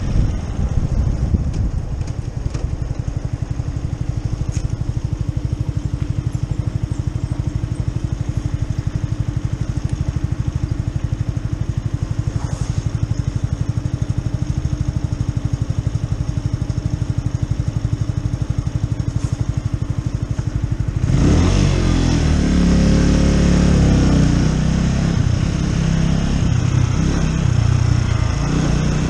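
Keeway Superlight 125 motorcycle engine idling steadily, then about 21 seconds in it pulls away and revs up and down through the gears, with wind noise rising as it gathers speed.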